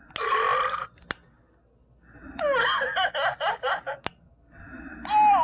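Burping, high in pitch. There is a short burp just after the start, then a longer stuttering one of six or seven quick pulses in the middle, and another long burp beginning near the end, with a couple of sharp clicks in between.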